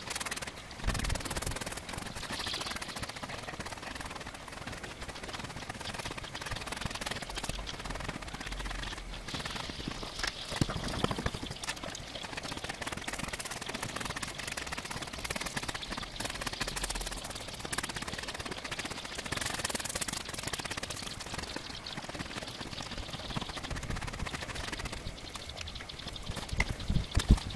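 Stiff push broom scrubbing snow back and forth across a rug laid on snow: a continuous scratchy brushing with many small scrapes and crunches, cleaning the rug with snow. A few louder knocks near the end.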